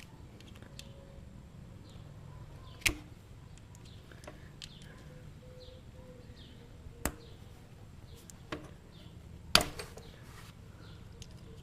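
Sparse sharp metal clicks and taps, four in all with the loudest near the end, from a pick and hand tools working at the old shift-lever oil seal in the engine case of a Suzuki LT230S. Faint, short high chirps sound throughout.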